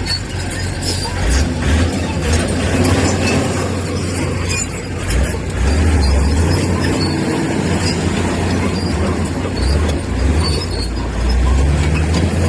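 Heavy diesel engine of a bulldozer working under load, its low rumble swelling and easing every few seconds, with scattered sharp clanks and clatter over it.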